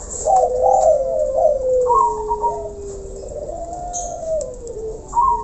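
Several caged doves cooing at once, their low gliding coos overlapping.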